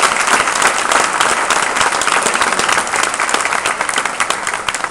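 Audience applauding: many hands clapping at once, thinning out gradually toward the end.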